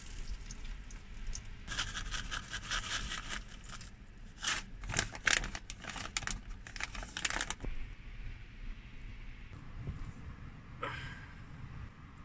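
Thin plastic food bag crinkling and crackling as it is handled and opened, in two stretches of sharp crackles, then a quieter stretch with a single soft click.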